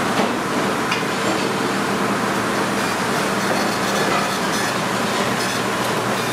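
Restaurant kitchen noise: a steady hum and rush, such as exhaust-hood fans, with a few light clicks of utensils.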